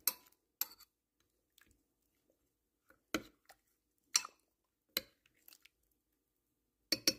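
Metal spoon clinking against a ceramic slow-cooker crock as broth is spooned over quail pieces: about half a dozen short, sharp clinks at uneven intervals, two close together near the end.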